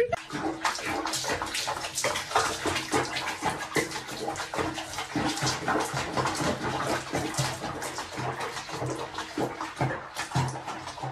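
Water splashing and sloshing in a sink basin where a wet cat sits being bathed, with irregular splashes throughout.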